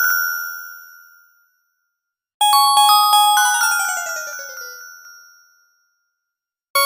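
Short synthesized bell-like ringtones of an LG RD6130 mobile phone. One tune rings out in the first second and a half. After a brief gap a new chime jingle plays a quick falling cascade of notes and fades away, and the next ringtone starts just at the end.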